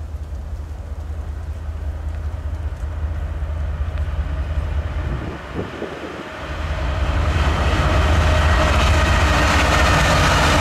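Diesel locomotives of a Norfolk Southern freight train approaching and passing, with a steady low engine rumble. The sound grows much louder about seven seconds in as the lead units come by, with a high whine over the rumble.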